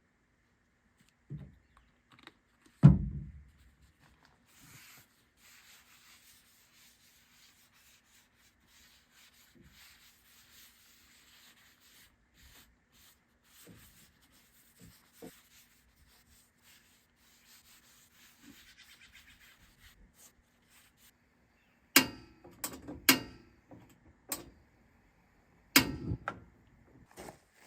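Handling and rubbing sounds: one heavy thump about three seconds in, faint scattered rubbing in between, then a quick run of sharp knocks and clacks near the end.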